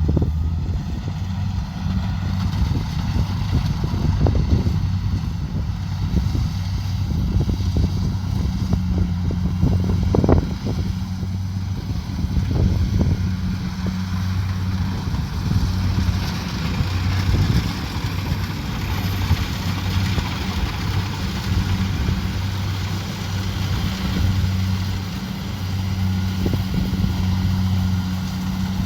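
Kubota DC70 Pro combine harvester running with a steady engine hum, with scattered knocks and rattles in the first half and a louder rushing machine noise from about halfway through.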